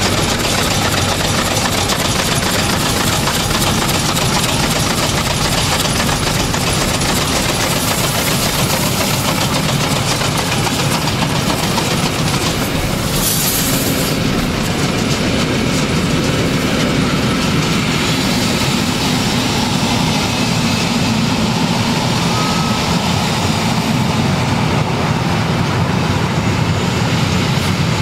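Historic steam train running past: the steam tank locomotive and its coaches rumbling and clattering along the rails in a loud, steady noise, with a brief sharp hiss about halfway through.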